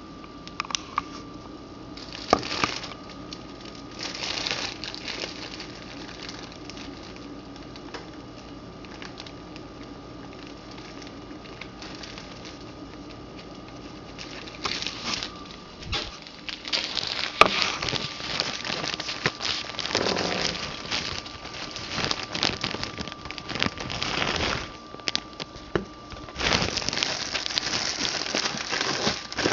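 Crinkling and rustling of food packaging with scattered clicks and knocks of handling, busier in the second half, over a faint steady high-pitched whine.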